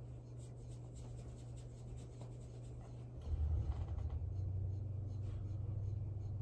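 A steady low hum with faint scratchy rustling; about three seconds in the hum gets louder and deeper and stays that way.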